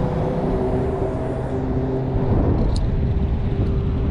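Strong wind buffeting the microphone, with a faint steady hum underneath.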